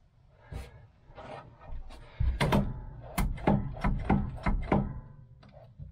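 Knocks and clatter of hard objects being handled: a few scattered knocks, then a quick run of about eight sharp knocks over a low rumble, dying away near the end.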